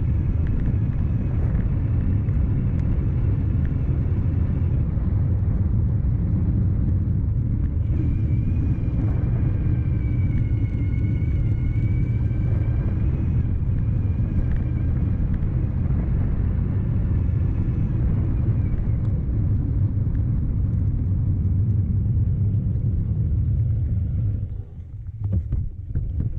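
Steady low rumble of an e-bike on the move, powered by a CYC X1 Stealth Gen3 mid-drive motor, with a faint high motor whine that rises and falls slightly around the middle. Near the end the rumble drops away and a quick run of clicks begins.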